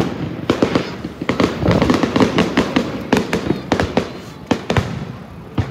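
Aerial fireworks shells bursting in quick succession: sharp bangs about three a second, overlapping one another.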